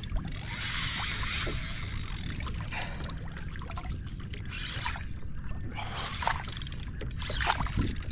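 Fishing kayak moving through the water, with splashing and water washing against the hull.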